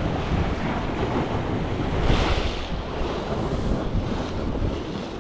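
Sea waves washing against a rocky shore, with wind buffeting the microphone; a louder surge comes about two seconds in.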